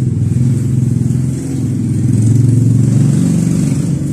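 Motor scooter engine running steadily, its pitch and loudness rising slightly for a moment about two seconds in, as if the throttle is blipped lightly.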